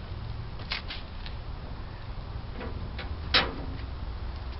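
Metal cooking grates being set into a charcoal grill: a few light clinks, then one louder metal clank with a short ring about three seconds in.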